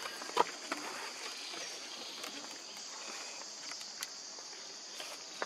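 Steady high-pitched insect chorus of forest insects, with a few short clicks and rustles over it, the loudest about half a second in.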